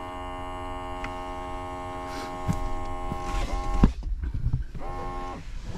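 Mercedes-Benz G63 (W463) seat-bolster air pump running with a steady electric hum, working as it should. A little past halfway its pitch sags and it cuts off with a knock, then it runs again briefly about a second later.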